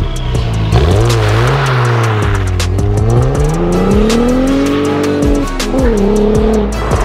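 Cadillac CT4-V Blackwing's 3.6-litre twin-turbo V6 revving, its pitch climbing for a few seconds, then dropping sharply and holding lower near the end, under background music with a steady beat.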